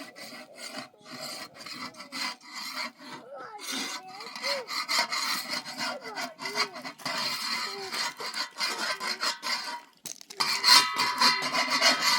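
Rapid, repeated rasping scraping strokes, louder over the last couple of seconds.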